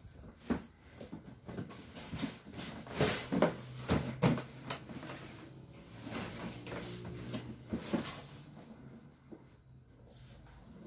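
Cardboard box handled and turned over by hand on a wooden surface: a run of knocks, scrapes and rubbing, loudest about three to four and a half seconds in.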